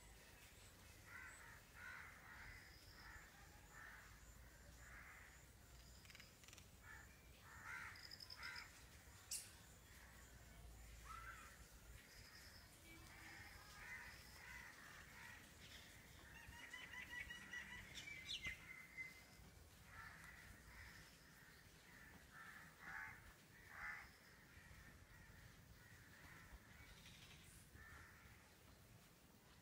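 Faint bird calls: crows cawing again and again, with small birds chirping now and then.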